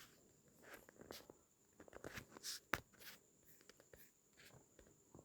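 Near silence: faint, scattered clicks and rustling against low room tone.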